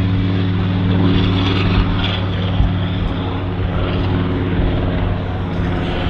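Yak-3 fitted with a Pratt & Whitney R-2000 twin-row radial engine, running loud and steady with propeller noise, its deep engine note holding an even pitch.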